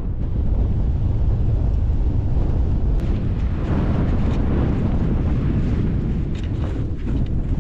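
Strong wind buffeting the microphone: a loud, steady rumble.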